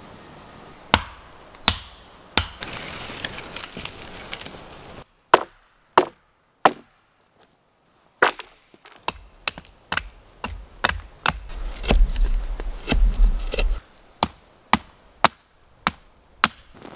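Hatchet chopping into dry deadwood: a series of sharp wooden strikes, coming about every half second in the second half.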